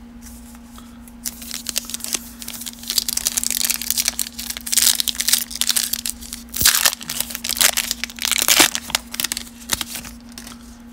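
Foil wrapper of a 2020 Donruss baseball card pack crinkling and tearing as it is opened by hand, in a run of uneven rustles that is loudest about five and eight seconds in.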